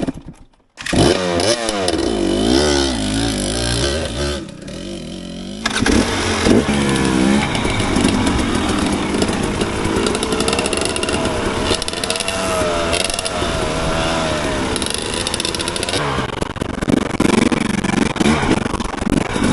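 Dirt bike engine revving up and down as the bike is ridden over trail terrain, the pitch rising and falling with the throttle. The sound drops out briefly just after the start.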